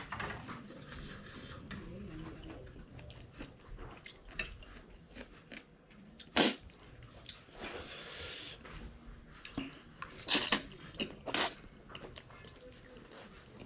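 A person chewing and slurping spicy noodles close to the microphone, with quiet chewing throughout and a few sharp, loud slurps about halfway through and again near the end.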